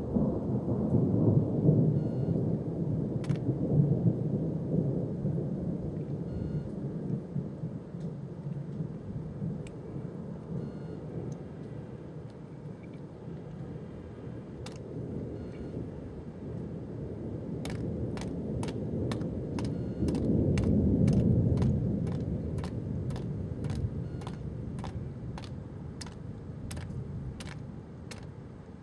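Thunder rumbling in two long rolls: one at the start and a second about twenty seconds in. Through the second half, an even ticking of about two ticks a second runs alongside.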